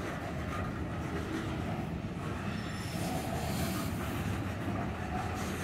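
Freight train of covered hopper cars rolling past at a grade crossing: a steady rumble of steel wheels on the rails, with a faint high wheel squeal coming in during the second half.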